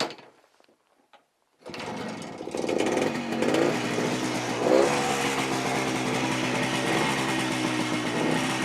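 A 1950s DKW motorcycle's two-stroke engine starts for the first time after standing unused for about a year. It catches about two seconds in, revs up twice, then runs steadily.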